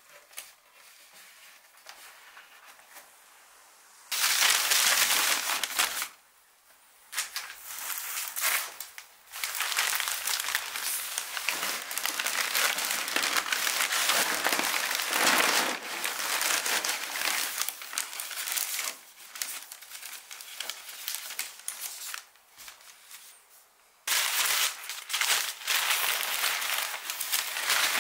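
Crinkly wrapping material crackling and rustling as it is handled, in several stretches that start and stop abruptly, with quiet gaps between.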